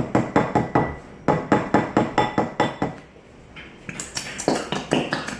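Glue bottles being rapidly knocked against a hard container to shake out the last glue, giving fast, even clinking knocks about six a second. They pause briefly about a second in and stop near three seconds, followed by a few scattered lighter knocks.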